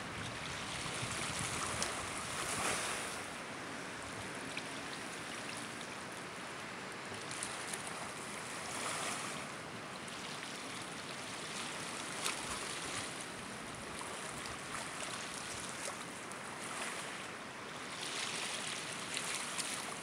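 Small waves lapping on a pebble shore, a steady wash of water noise that swells every few seconds.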